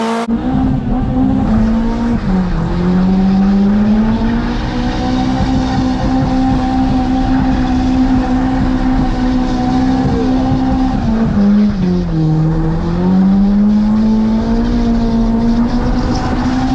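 Toyota Altezza's 3S-GE four-cylinder engine, heard from inside the cabin, held at steady revs through a skid over the hiss of spinning tyres. The revs dip and climb back twice, about 2 seconds in and about 12 seconds in.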